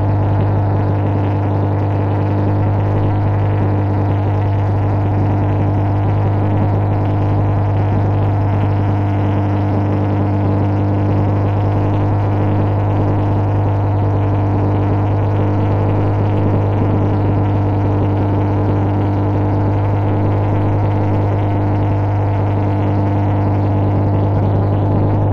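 A tugboat's diesel engine droning steadily while under way towing a barge: a loud, deep, unchanging hum with a few fainter higher tones above it.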